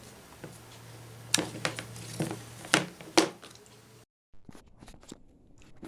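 Handling noise: five or so sharp clicks and taps of small hard objects being handled, over a steady low hum. About four seconds in the sound cuts out abruptly, then a few faint ticks follow.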